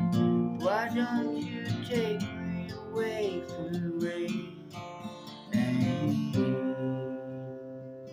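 Acoustic guitar strumming in an instrumental break of a song, with a melody line that bends and glides in pitch over the chords during the first few seconds.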